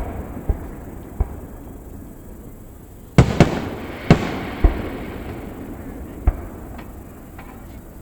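Fireworks shells bursting in a scattered series of sharp bangs, each trailing off in a lingering rumble. A few bangs come early, the loudest cluster falls around three to five seconds in, and one more comes past six seconds.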